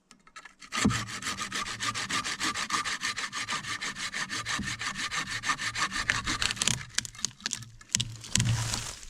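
A hand tool working a piece of birch wood with rapid, even back-and-forth strokes, about eight a second, for some six seconds, then a few separate scrapes near the end.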